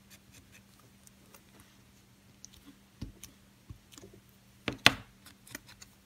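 Quiet handling of a watercolor marker and a rubber stamp on a clear acrylic block: a light tap about three seconds in and a sharp double click a little before the end, the loudest sound, over a faint steady low hum.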